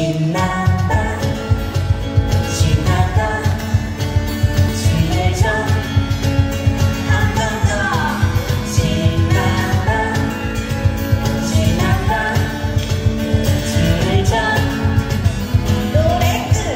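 Live acoustic band playing through a PA: sung vocals over strummed acoustic guitars, with a steady cajon beat underneath.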